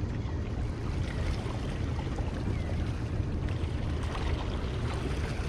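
Waterside ambience: steady wind rumble on the microphone over the wash of bay water.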